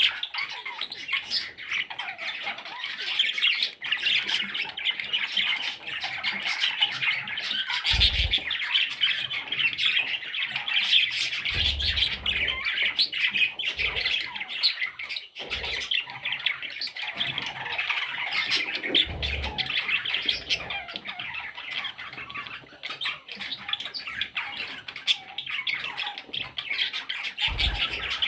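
Baby parrot chicks calling without pause, a dense chorus of many overlapping squawky calls, with a few low bumps along the way.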